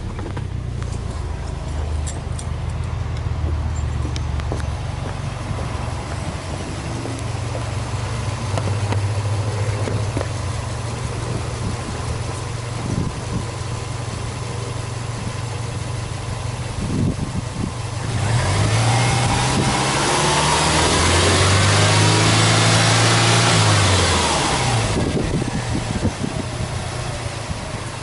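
Subaru Impreza WRX STi (GDB) turbocharged flat-four boxer engine idling steadily, then revved up about two-thirds of the way through, held for about five seconds and let fall back to idle.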